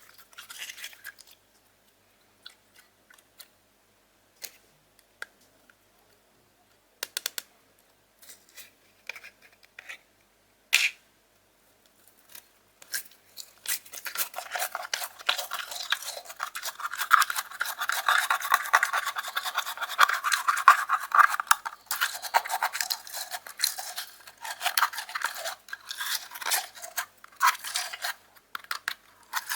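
Slime being worked by hand, mixed into clear slime: a few scattered sticky clicks in the first half, then a dense run of crackling, popping and squishing from about halfway.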